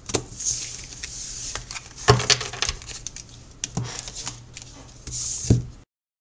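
Tarot cards being handled and shuffled: a run of sharp clicks and slaps with papery rustling in between, which stops dead a few seconds in.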